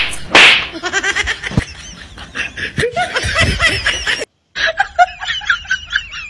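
A loud slap-like hit sound effect just after the start, then a laugh-track sound effect of rapid laughter that drops out for a moment about four seconds in and starts again.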